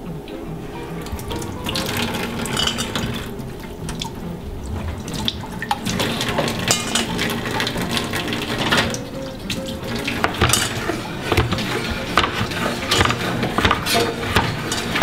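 Tap water running over coconut meat in a metal mesh strainer while it is rubbed clean by hand. About two-thirds of the way through, a kitchen knife starts chopping the meat on a bamboo cutting board: a quick run of sharp knocks.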